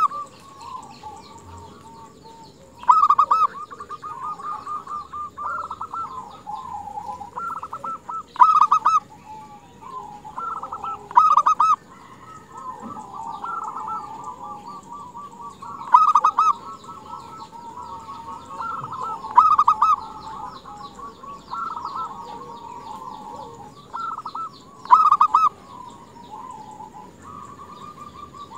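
Zebra dove (perkutut) cooing: loud bursts of rapid staccato coo notes about every three to six seconds, over softer running trills of coos between them. The calling is a female zebra dove calling to males.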